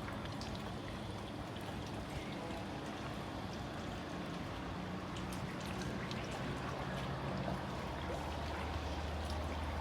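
Water lapping and trickling at the water's edge, with small scattered drips and splashes; a low steady hum comes in near the end.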